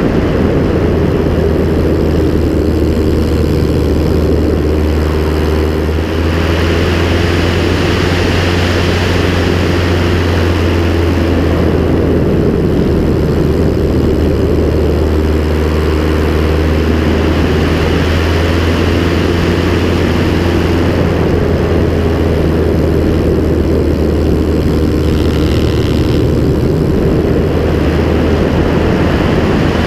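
Clipped-wing Piper Cub's Continental C-90 four-cylinder engine and propeller in flight, with wind rushing past. The engine note runs steadily, rising and falling slightly a few times as the plane manoeuvres.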